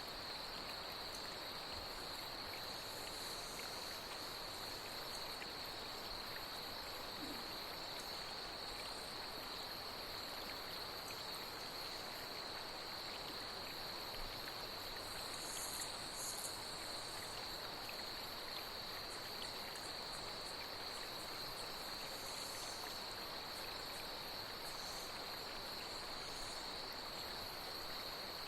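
Steady high-pitched chorus of night insects over the even rush of flowing water, with a few brief higher chirps about halfway through.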